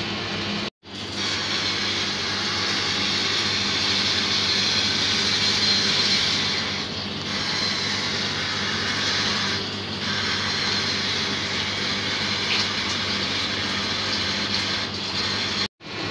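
Commercial convection oven's fan running: a steady rushing hiss over a low hum, cutting out briefly about a second in and again near the end.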